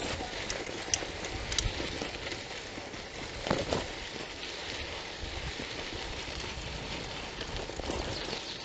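Bicycle tyres rolling over a dirt road: a steady gritty noise, with a few light clicks in the first two seconds.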